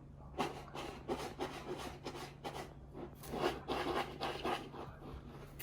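Irregular scratching and rubbing strokes, short and uneven, over a faint steady low hum.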